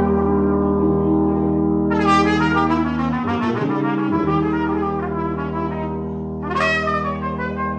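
Brass fanfare playing a Romanian hora: a trumpet plays melodic phrases about two seconds in and again near the end, over long-held low chords from three valved brass horns.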